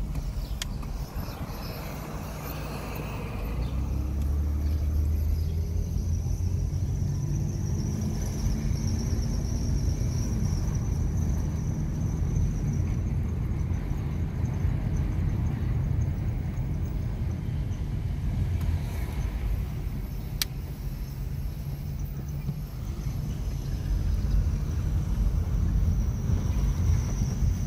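Car engine and road rumble heard from inside the cabin while driving, swelling about three to four seconds in as the car pulls away. Two sharp clicks stand out, one near the start and one about twenty seconds in.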